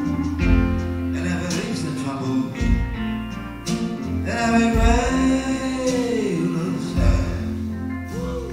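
Live band playing a slow song, with guitar over a steady bass line and a long held melodic note that bends up and back down in the middle.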